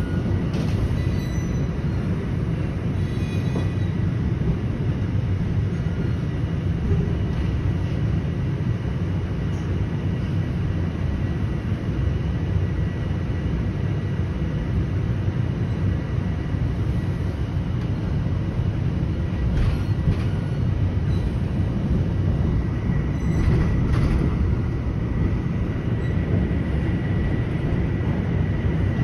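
Toronto Rocket subway train running through a tunnel, heard from inside the car as a steady low rumble of wheels on rail. A faint steady high whine runs under it, and a few light clicks come through.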